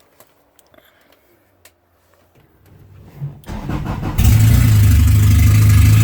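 A few faint clicks, then a car engine turns over and fires about three and a half seconds in, settling into a loud, steady run with a pulsing low drone.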